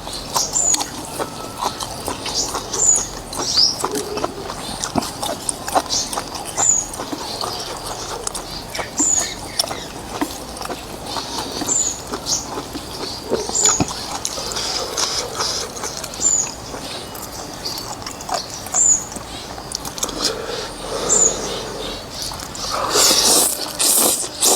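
Close-up eating sounds: chewing and mouth clicks over noodles in beef soup, with a louder slurp about a second before the end.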